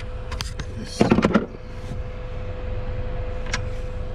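Clicks and a brief rattling clatter about a second in as car audio gear and wiring are handled, over a steady low hum with a faint constant tone.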